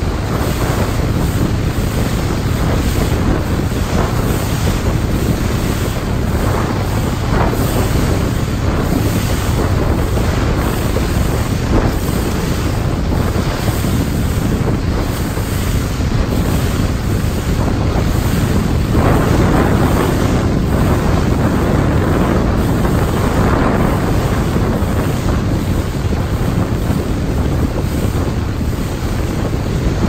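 Wind buffeting the microphone over the steady rush and slap of water as a small motorboat's hull runs through choppy, wind-driven waves, with a few louder splashes now and then.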